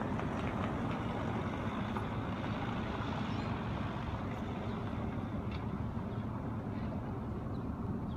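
Steady low rumble of distant engine noise, unchanging throughout.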